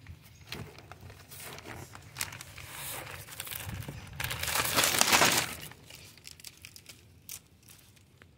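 Clear plastic wrap crinkling and rustling as it is peeled off a compressed coco coir brick, loudest about four to five and a half seconds in.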